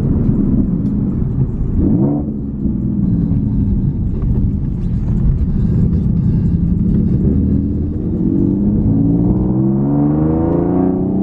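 Nissan 370Z's 3.7-litre V6 through a Motordyne Shockwave aftermarket exhaust, accelerating. The pitch rises to a gear change about two seconds in, holds fairly steady, then climbs again near the end as the car pulls harder.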